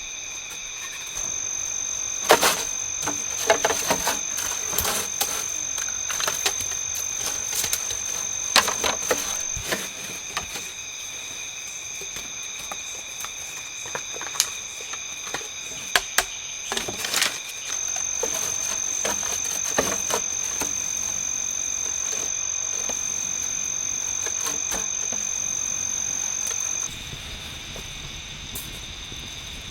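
Steady, high-pitched insect chorus in several shrill bands that swells louder at times, with scattered sharp clicks and knocks over roughly the first half.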